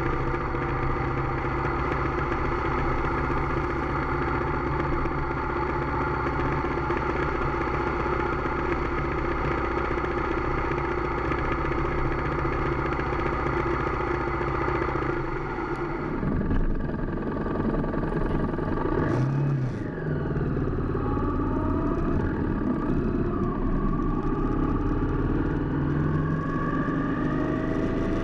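Motorcycle engine running at a steady cruise, heard from the bike itself. About halfway through the engine note changes, and later it rises in pitch several times as the bike picks up speed.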